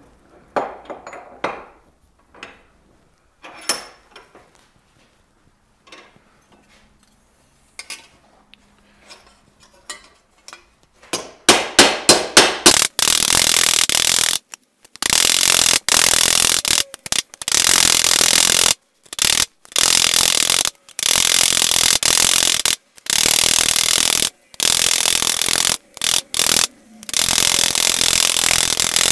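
Light blows of a small 8-ounce hammer on a brick chisel, chasing lines into a steel helmet ocular. At first there are a few scattered taps. About eleven seconds in comes a quick run of separate taps. After that the tapping comes in long, rapid bursts that run together into a continuous rattle, broken by short pauses.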